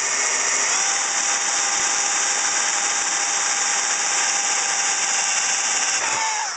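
Drill press running, its twist bit boring a small hole into a die-cast metal clock part that is to be tapped for a screw. There is a steady whine that settles about a second in, then glides down as the motor winds down and stops at the very end.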